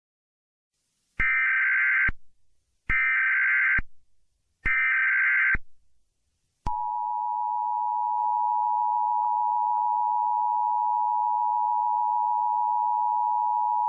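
Emergency Alert System header: three short bursts of SAME data tones, each about a second long, followed a second later by the steady two-tone EAS attention signal, which keeps sounding.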